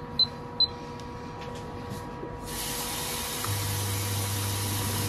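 Electric hob's touch controls beeping twice, short and high, in the first second. About halfway a steady hiss starts, joined a second later by a low steady hum.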